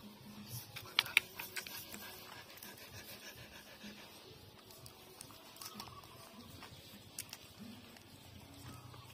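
Puppies suckling at their mother's teats: many small wet smacking and clicking sounds, with two sharper clicks about a second in.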